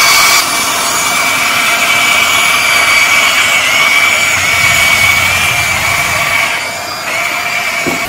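Electric motors of a Huina radio-controlled toy excavator whining steadily as it drives on its tracks and works its arm in the mud, the whine dropping briefly about seven seconds in.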